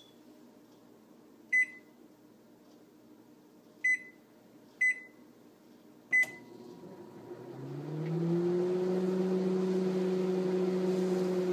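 Microwave oven keypad beeping four times as the cook time is entered and started. Then the oven starts up: its hum rises over a second or two and settles into a steady drone as it heats.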